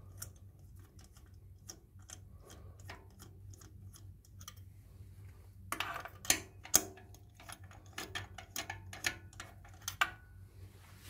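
Ratchet wrench on a 16 mm spark plug socket clicking in short runs as the spark plugs are unscrewed from a Toyota Camry's four-cylinder engine, with louder clicks and knocks about six to seven seconds in and again near ten seconds.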